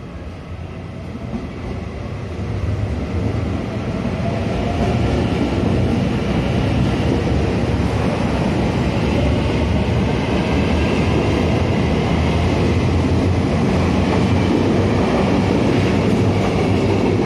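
Electric multiple-unit train running through the station, the rumble of its wheels on the rails growing louder over the first few seconds and then holding steady as the cars go by.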